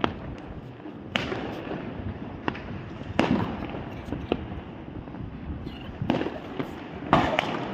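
Fireworks going off: a string of separate sharp bangs at irregular intervals, about eight in all, each followed by a short echo, with the loudest near the middle and near the end.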